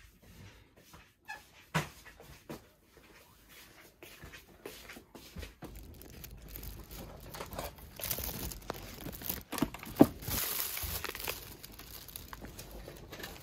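Plastic shopping bag and ice cream bar wrappers rustling and crinkling as the bars are handled inside the bag, busiest in the second half with a sharp snap near the end. A few scattered clicks and knocks come before it.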